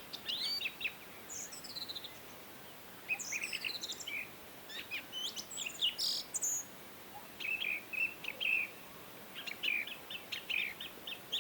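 Several songbirds chirping and calling over one another in quick clusters of short high chirps, trills and falling whistles, with brief gaps between clusters over a faint steady background hiss.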